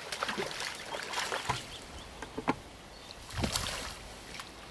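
Water splashing and sloshing around a small fishing boat, with a few sharp knocks and clatters against the hull, the loudest about a second and a half, two and a half and three and a half seconds in.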